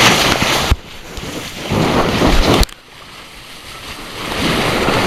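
Wind blasting across the microphone, with sea water rushing past a Tornado catamaran under sail. The noise cuts out sharply twice and builds back up.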